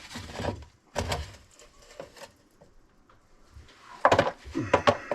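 Knocks and scraping from handling plastic sink drain piping under a kitchen sink. There is a sharp knock about a second in, a quiet spell, then a burst of clattering and rubbing near the end.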